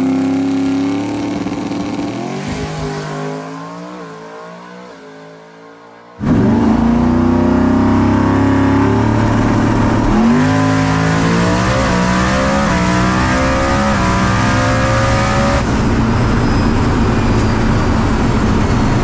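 Turbocharged Ford Coyote V8 drag car on a full-throttle pass. Heard from behind, it climbs in pitch through the gears and fades as it pulls away. About six seconds in, the sound cuts to inside the car: the engine loud and close, revving up, shifting about ten seconds in, revving up again and settling near the end.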